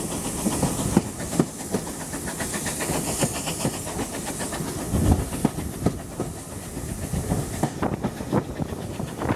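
Steam train on the move, heard from an open carriage window behind GWR 57xx pannier tank no. 7714: wheels clicking over the rail joints under a steady hiss of steam and rushing air, with a louder thump about five seconds in.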